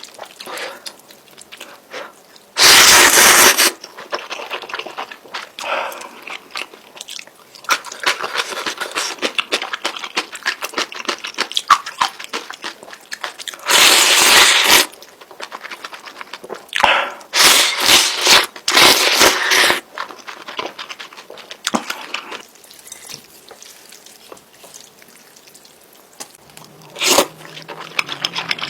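Close-miked eating sounds of a person eating spicy instant noodles with fried egg and sausage: steady wet chewing and biting, broken by a few loud noisy stretches about a second long.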